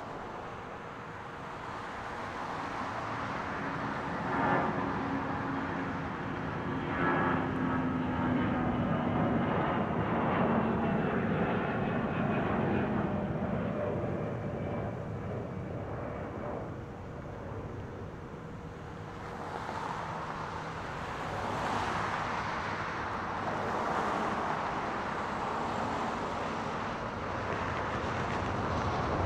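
Distant jet engines of a Boeing C-17 Globemaster III landing: a steady rumble with a faint whine that slowly falls in pitch, growing louder about two-thirds of the way through as the aircraft rolls out on the runway.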